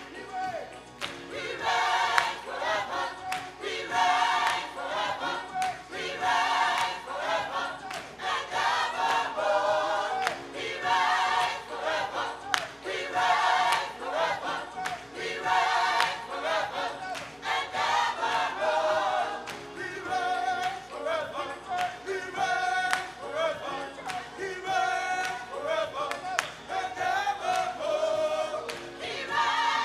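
Gospel choir singing with instrumental backing, a steady beat running under the sung phrases.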